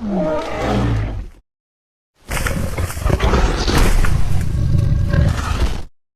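Two monster roar sound effects for a kaiju character, with a short silence between them. The first is a short pitched cry that falls in pitch over about a second. The second is a longer, harsh roar with a heavy low end that lasts about three and a half seconds and cuts off abruptly.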